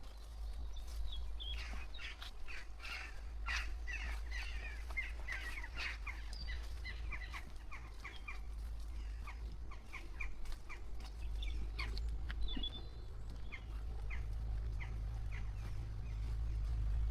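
Birds chirping: quick runs of short, high calls, busiest in the first half and thinning out later, over a steady low rumble.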